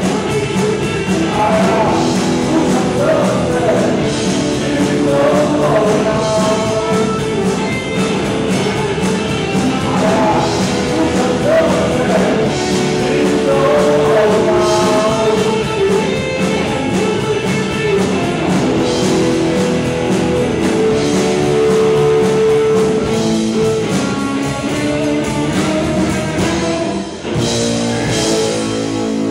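Live rock band playing with sung vocals: electric guitars, bass guitar and drums, with a short drop in loudness near the end.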